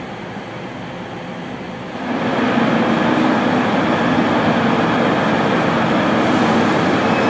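Steady low background hum. About two seconds in it gives way to the louder, steady diesel drone of a Class 43 HST power car drawing into the platform.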